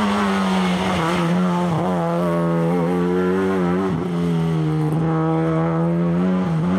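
Lada 2105 rally car's four-cylinder engine running hard at high revs under load. Its pitch holds fairly steady but dips briefly a few times.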